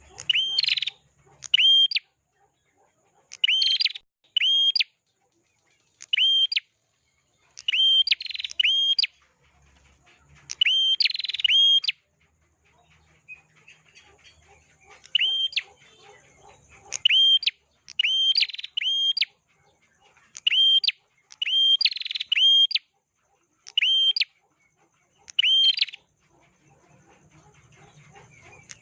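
A prenjak (prinia) singing energetically: short, loud chirping phrases, often in pairs, repeated every second or two with brief pauses between groups.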